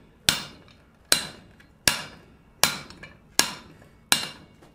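Hand hammer striking the top die of a guillotine fullering tool on the anvil, six even blows about one every three quarters of a second, each ringing briefly. The fuller is being driven into red-hot steel to set in the groove of a concave butcher tool.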